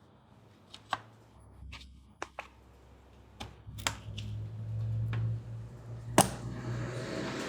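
Scattered sharp clicks and taps of hard plastic and metal computer parts being handled and fitted during a PC build, over a low steady hum. Near the end comes a louder stretch of rustling and scraping.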